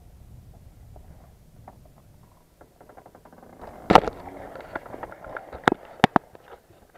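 Handling noise of a small action camera being taken off its mount: scattered clicks and knocks, with one loud knock about four seconds in and several sharp clicks near the end.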